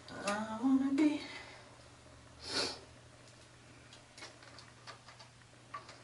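A woman humming a short wordless phrase, then a breath, then faint small plastic clicks as a bottle cap is handled and opened.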